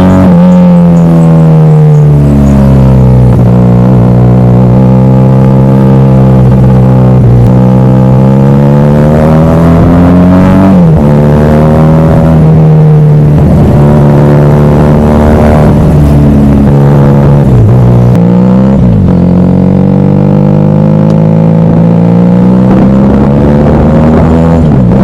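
QJ Benelli SRK 400's parallel-twin engine through a Yoshimura silencer and stainless steel bend pipe, running loud. It revs up in long, slowly rising climbs broken by several sharp dips in pitch, as the bike accelerates and changes gear.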